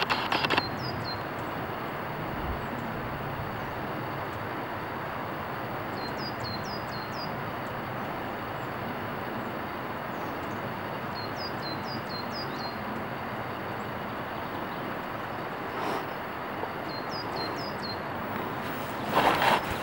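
Steady rushing background noise, with a small songbird singing short phrases of four or five quick, high, falling notes about four times. Louder bursts of noise come at the start and near the end.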